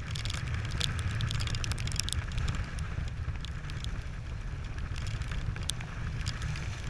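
Wind buffeting the camera microphone on a small sailboat under way, a steady low rumble, with water rushing along the hull and scattered sharp ticks of drops hitting the camera housing.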